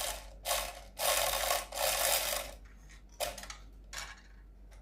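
Cuckoo clock weight chain being fed through the chain hole and over the movement's pulley, its metal links rubbing and rattling in a series of short scraping bursts, four longer ones followed by two brief ones.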